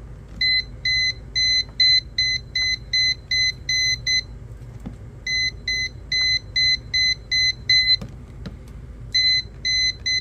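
ANENG M119 multimeter's non-contact voltage (NCV) beeper sounding a steady series of high beeps, about two to three a second, as it is held along a mains cable, signalling that it senses live voltage. The beeping breaks off briefly twice and then resumes as the meter is moved.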